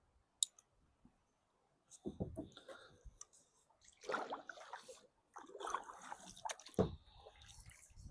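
Water splashing and sloshing in irregular bursts, with a sharp click about half a second in.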